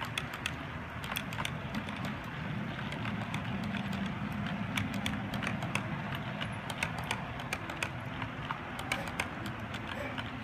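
O scale model tank cars rolling on two-rail track, their wheels making a quick, irregular clicking over a low, steady rumble of the rolling train.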